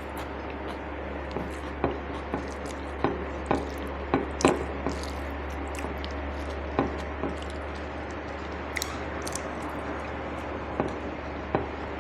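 Mukbang eating sounds: wet chewing and food being handled, with scattered light clicks and taps of dishes, most of them in the first half and a couple more near the end, over a steady low hum.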